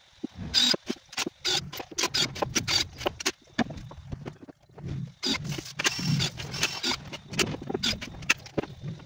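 Irregular knocks and clatter of plywood pieces being handled and fitted together on a concrete floor, with short scrapes of wood on wood. The knocking eases off for a moment a little past three seconds in, then picks up again.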